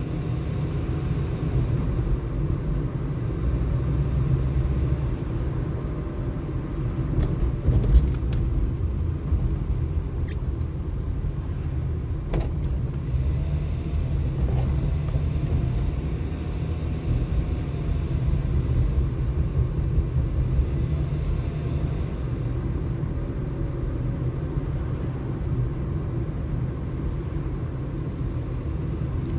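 A car driving along a road, heard from inside the cabin: a steady low rumble of engine and tyres, with a single thump about eight seconds in and a sharp click a few seconds later.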